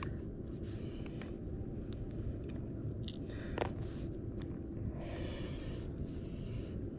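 Steady low rumble of wind and water around a small fishing boat, with a few small sharp clicks and a couple of soft hissing swells that could be breaths.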